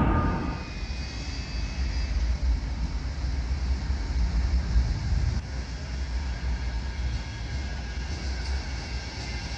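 A louder, echoing tram rumble cuts off within the first half second. It gives way to a steady low rumble with faint thin high tones as a Bombardier M5000 tram approaches along the tracks from a distance.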